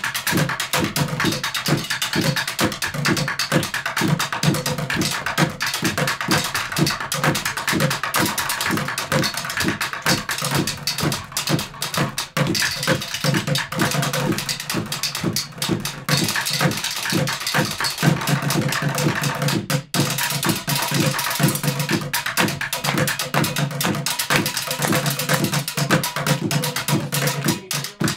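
Junk percussion played with drumsticks on buckets, a trash can, a metal stepladder and a speaker cabinet, a fast steady drumbeat.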